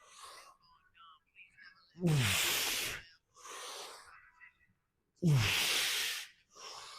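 A man breathing hard through repetitions of a lifting exercise. Two forceful exhales, each starting with a short falling grunt, come about three seconds apart, with quieter inhales between.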